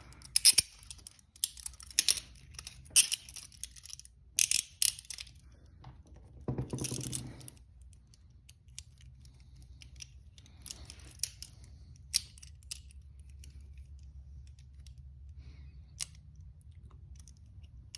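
Metal handcuffs clicking and rattling as they are handled, with clusters of sharp clicks in the first half and scattered faint clicks later.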